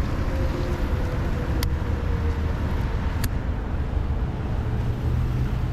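Steady low outdoor rumble with two short, sharp clicks about a second and a half apart.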